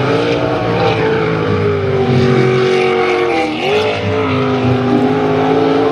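Jet sprint boat's V8 engine running hard at high revs; its pitch dips briefly about three and a half seconds in, then climbs back.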